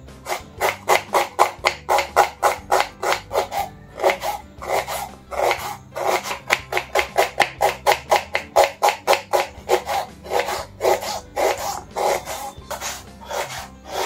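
Knife slicing a red onion on a wooden chopping board: quick, regular cutting strokes, about four a second, with a few short pauses.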